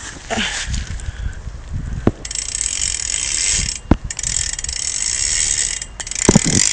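Stock 9-tooth cassette hub on a 2011 Verde Eon BMX, its freewheel pawls ratcheting in a fast buzz of clicks as the cranks are pedaled backward, in long spells with short breaks, plus a few single knocks. The hub is quite loud for a stock hub.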